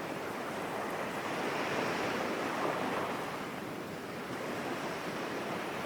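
Ocean waves washing on a shore, a steady rush of surf that swells gently and eases again.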